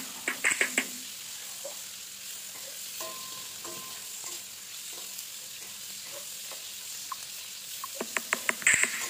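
Diced chicken breast frying in a stainless steel pan with a steady sizzle. A metal spoon clinks and scrapes against the pan as the chicken is stirred, in the first second and again near the end.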